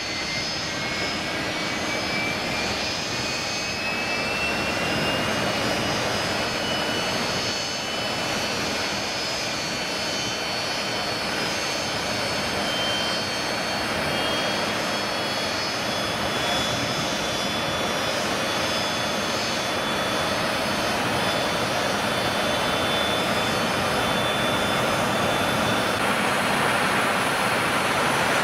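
Antonov An-26 turbine engine spooling up: a steady rush of noise with a whine that climbs in pitch over the first fifteen seconds or so, then holds. The noise grows slightly louder near the end.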